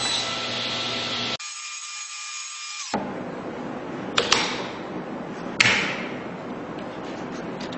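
Workshop tool sounds joined by edits: a power tool running steadily, cut off abruptly about a second and a half in, then two sharp knocks with short ringing tails a little over a second apart.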